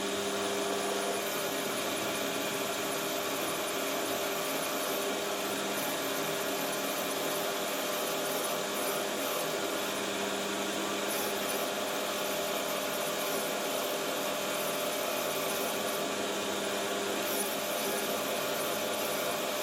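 Metal lathe running with a grooving cutter plunged into a cast base, giving a steady scraping cutting noise over a faint motor hum.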